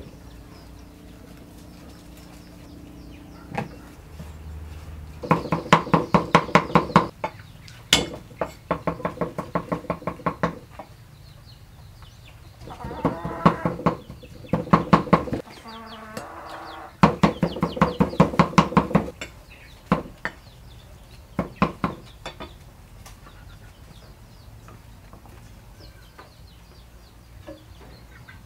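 Cleaver chopping meat and garlic on a wooden chopping block: several runs of rapid strokes, about six a second, with a few single knocks between them.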